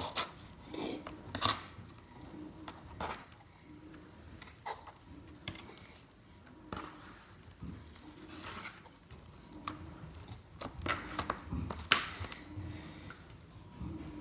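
Slime being kneaded and squeezed by hand as lotion is worked in, giving irregular wet squelches and sticky clicks and pops.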